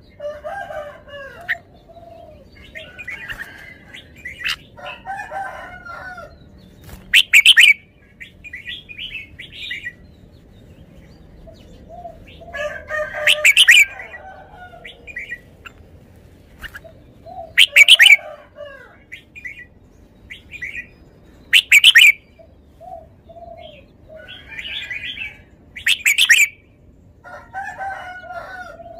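Red-whiskered bulbul singing: five loud, short song phrases about four seconds apart, with softer warbling chatter between them.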